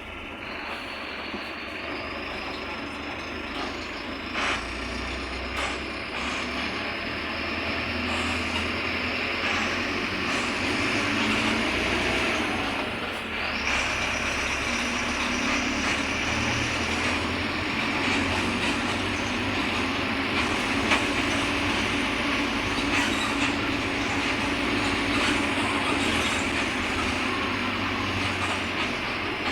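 Mercedes-Benz OF-1721 city bus's four-cylinder diesel engine running under way, with road and body noise. The engine grows louder over about the first ten seconds, eases off briefly about halfway through, then holds steady.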